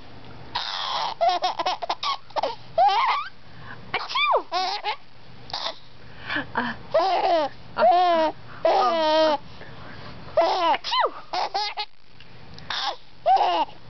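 A young girl giggling and laughing in repeated high-pitched bursts, in clusters with short pauses between them.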